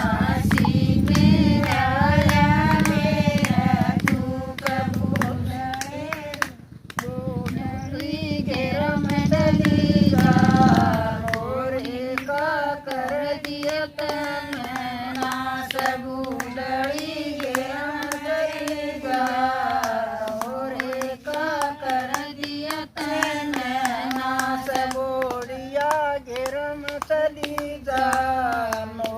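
Haryanvi folk bhajan sung without a break, with hand clapping keeping time. A loud low rumble sits under the singing for about the first eleven seconds.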